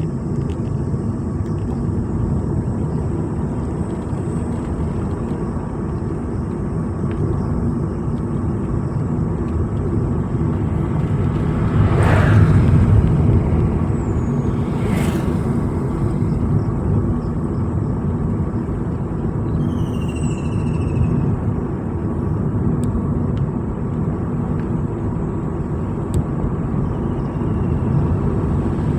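Vehicle engine and tyre noise of a drive along a road: a steady low rumble that swells louder about twelve seconds in, with a few sharp knocks.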